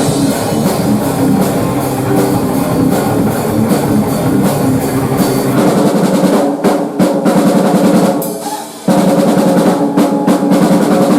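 Live rock band playing loudly, with a pounding drum kit and distorted guitar. About eight seconds in the sound thins out for a moment, then the full band crashes back in.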